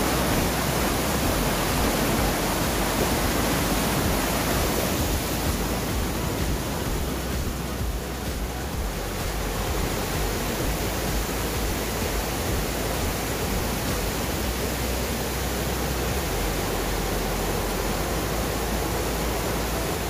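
Steady rush of a rocky mountain stream cascading over small falls and pools.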